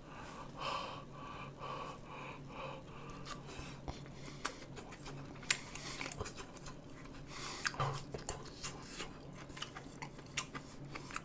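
Close-miked chewing of fried rice eaten off a spoon: soft wet mouth sounds and small clicks, more frequent in the second half, over a faint steady hum.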